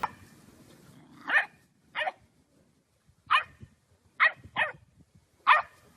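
A dog barking: six short, high barks at irregular intervals.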